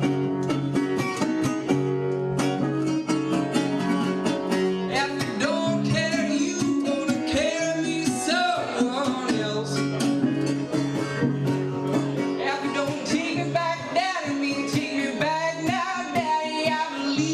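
Live blues song: guitar picking and strumming a steady accompaniment, with a voice singing over it from about five seconds in.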